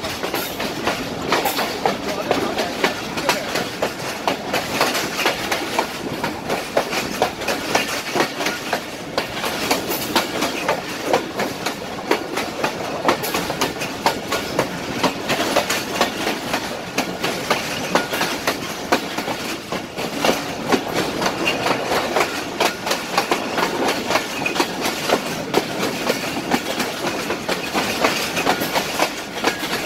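A Pakistan Railways passenger coach running along the track, heard from its open doorway: a steady rushing noise with a rapid clickety-clack of the wheels over rail joints.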